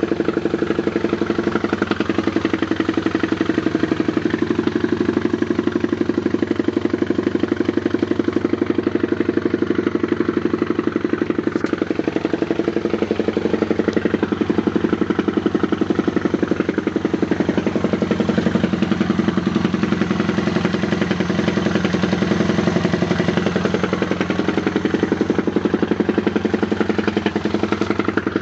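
Stomp 120 pit bike's single-cylinder four-stroke engine idling steadily, with an even, rapid exhaust pulse.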